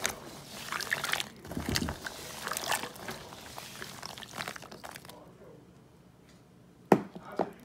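Water pouring and splashing for about five seconds, then it stops, and a single sharp knock comes near the end.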